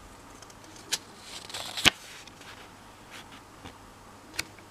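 Handling of the Fidget Cube's box and plastic tray: a few light clicks and taps, the loudest about two seconds in, just after a short rustle.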